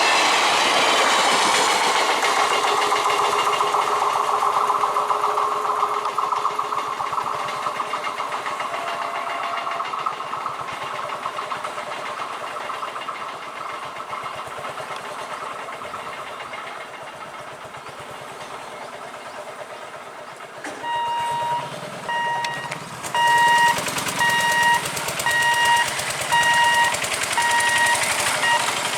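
Train running over the rails, its noise fading away over the first ten seconds or so. About twenty seconds in, a vehicle engine hums and an electronic beep repeats a little more than once a second.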